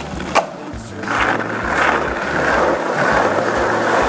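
Skateboard landing with a single sharp clack about half a second in, then the urethane wheels rolling on concrete, over background music.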